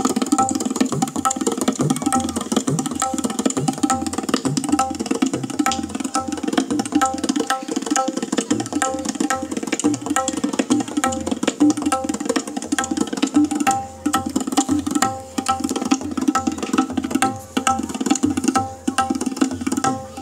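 Tabla played in a fast, steady rhythm, with a guitar played sitar-style plucking repeated notes over it, in an Indian-style piece.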